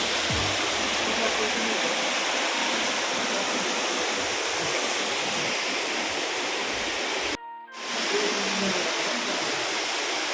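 Waterfall rushing, a steady, even roar of falling water. The sound cuts out abruptly for a moment about three-quarters of the way through, then comes back.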